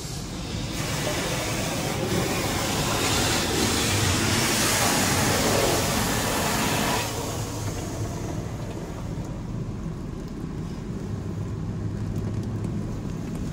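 High-pressure water jets of a Ryko Monarch II touch-free rollover car wash spraying the vehicle, heard from inside the car. The spray hiss swells about a second in, is loudest a few seconds later, and drops back about seven seconds in to a weaker wash of water, over a steady low hum.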